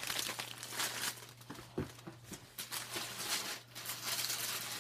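Tissue paper rustling and crinkling in quick, irregular crackles as it is handled and unwrapped, with a light knock a little under two seconds in.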